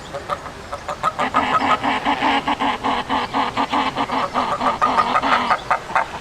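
A sound-designed Velociraptor call: a fast, even run of bird-like clucking chatter, about four or five pulses a second, starting about a second in and stopping shortly before the end.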